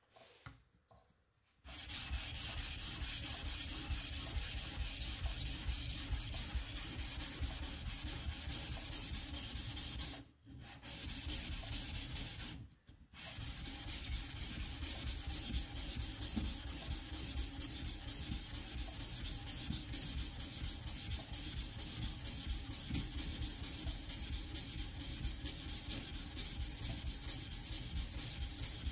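Deba knife blade scraped rapidly back and forth on a wet Shapton Kuromaku #240 coarse whetstone, grinding chips out of the edge. The strokes start about two seconds in, run on steadily and stop twice briefly near the middle.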